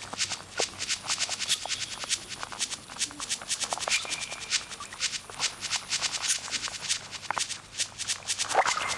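Dense, irregular clicking and crackling, several clicks a second, with a few brief high whistling tones.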